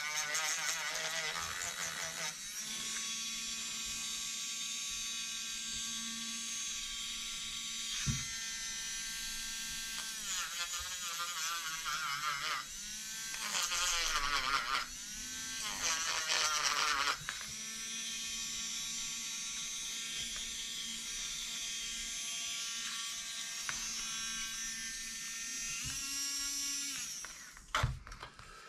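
Handheld electric rotary tool running at high speed with a small bit, smoothing a glued repair on a camera mount. Its pitch wavers and dips while the bit is pressed into the work, and it cuts off near the end, followed by a knock as the tool is set down.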